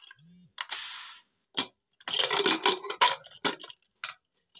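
Aluminium pressure cooker lid being opened. A short hiss about a second in, then the lid scrapes and clinks against the cooker's rim as it is worked free.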